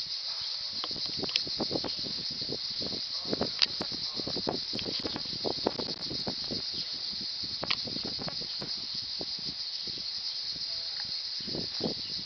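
A steady high-pitched insect chorus, with irregular soft rips and crunches throughout from a black-and-white cow tearing and chewing grass.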